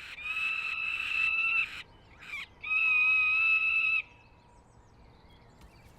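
Peregrine falcon chicks giving two long, high, steady-pitched begging calls, each about a second and a half, as they beg for food.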